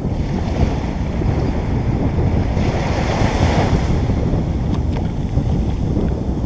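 Ocean surf breaking and washing up the beach, with heavy wind rumble on the microphone. A louder wash of water swells about two and a half seconds in.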